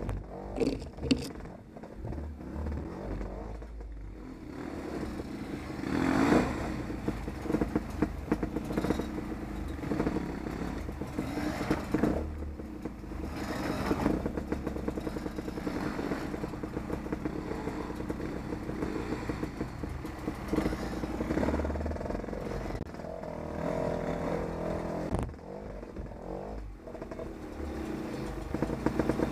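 Beta off-road motorcycle engine running as it is ridden, its pitch rising and falling with the throttle throughout.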